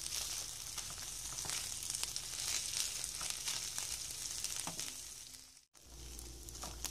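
Dried Bombay duck (loitta shutki) pieces sizzling as they fry in mustard oil, with small clicks and scrapes of a wooden spatula stirring them. About five and a half seconds in the sizzle breaks off sharply and comes back quieter over a low hum.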